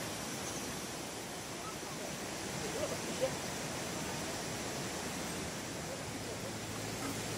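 Steady outdoor background hiss, with a faint distant voice briefly about three seconds in.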